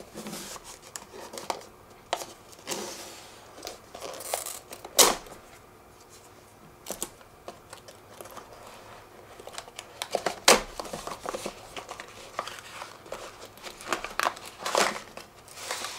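Hands handling a cardboard retail box: rustling, scraping and tapping of card, and tape and sticker seals being picked and peeled, with sharp snaps about five and ten and a half seconds in. Near the end the card inner tray slides out of its sleeve with a longer rustle.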